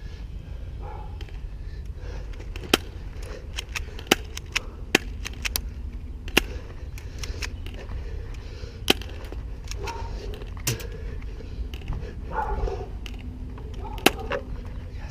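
BB guns going off: about nine sharp, irregular cracks of shots and pellets striking, one near the end as the pistol is fired. Under them is a steady wind rumble on the camera mic.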